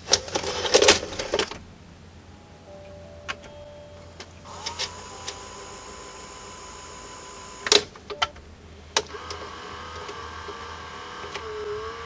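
Sharp VC381 VCR's tape mechanism: clicks, then a steady motor whine, a few more sharp clicks, and a second steady whine whose pitch dips near the end.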